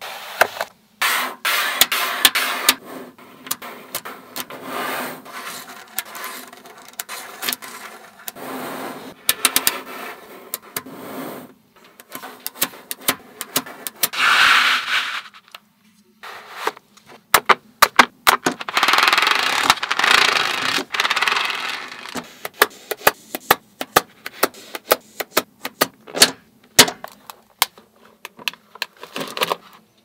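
Small neodymium magnet balls being handled: many sharp clicks as they snap together, with rustling and scraping stretches as rows of them are pressed and slid across foam board. Clusters of rapid clicks come near the middle and through the last third.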